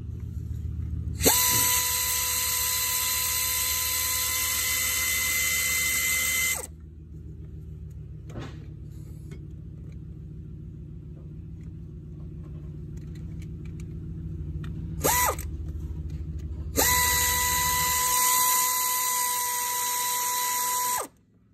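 Handheld power tool run in two long bursts of about five and four seconds, each a steady whine, with a short blip between them. A low steady hum sits underneath and stops a few seconds before the end.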